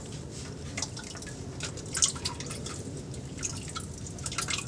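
Engine oil dripping in irregular drops from a loosened oil filter as it is unscrewed, with one louder drop about two seconds in.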